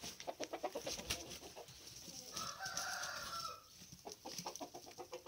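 Chickens clucking in quick runs of short notes, with one drawn-out call a little over two seconds in.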